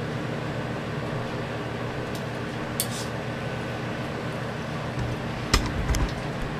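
Steady low hum and hiss of kitchen background noise around a gas range, with a few sharp clicks near the middle. Several more clicks and low bumps come about five to six seconds in.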